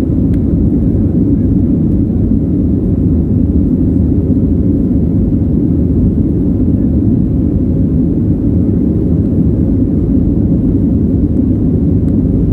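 Boeing 737 cabin noise while climbing after takeoff: a steady, loud low rumble from the jet engines and the air rushing past the fuselage, heard from inside the cabin over the wing.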